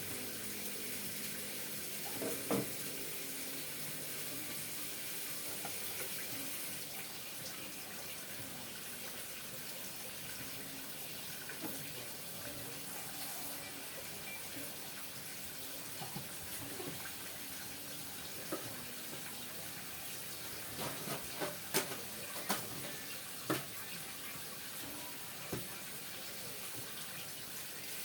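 Pot of water boiling on the stove for rice vermicelli: a steady bubbling hiss. A few sharp knocks of utensils against the pot come a couple of seconds in and again in a cluster near the end.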